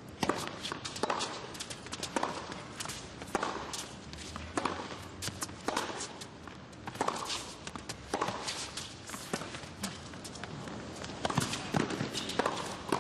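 Tennis rally: a ball struck back and forth by rackets and bouncing on the hard court, a sharp pop about every second.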